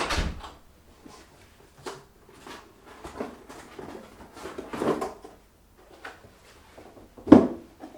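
A series of irregular knocks and thumps, like objects being handled or set down, with a sharp one at the start and the loudest near the end.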